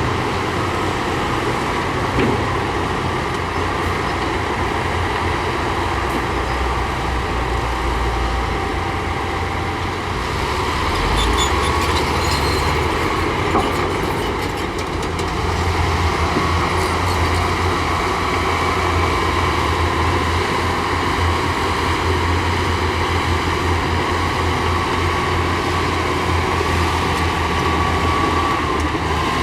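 Heavy diesel earthmoving machinery, such as a bulldozer and dump trucks, running steadily with a deep engine drone that changes pitch as the load shifts. There are a few sharper clanks and squeaks near the middle.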